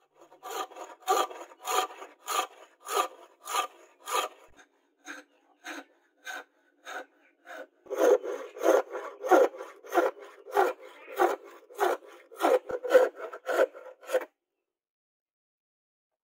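Thin-bladed hand frame saw cutting a curve through a hardwood board for a knife handle scale, in steady back-and-forth strokes about one and a half a second. The strokes go quieter for a few seconds in the middle, then pick up again and stop about two seconds before the end.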